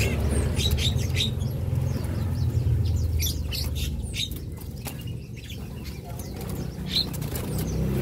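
Young cinereous tits flapping and fluttering about a wire cage, in short bursts of wingbeats, with a few short chirps. A steady low rumble runs underneath.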